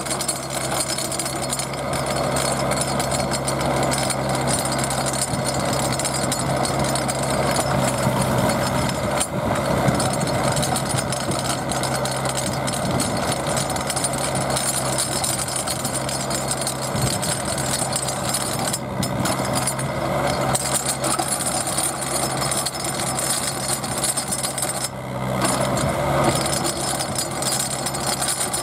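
Engine of a small remote-controlled auger drill rig running steadily as the auger bores into the ground.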